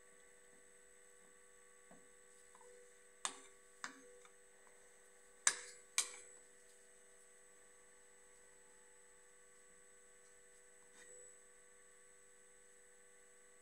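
Steady electrical hum made of several fixed tones, with two pairs of sharp taps, about three and about five and a half seconds in, from a stirring stick knocking against the container as primer filler is stirred.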